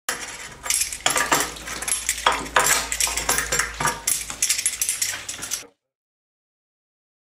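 Irregular metallic clinking and clanking as an old column radiator is worked loose at its pipe fitting with locking pliers and lifted off its wall brackets. The clatter stops abruptly about five and a half seconds in.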